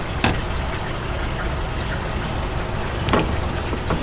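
Plastic squeeze bottle of crema being squeezed over a bowl of chili, with two short squirts or sputters, about a third of a second in and about three seconds in, over a steady low background rumble.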